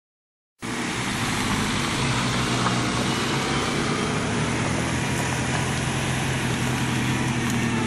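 Silent for the first half-second, then a modified Suzuki Samurai's engine runs steadily at low revs as the 4x4 crawls up a gravel dirt track.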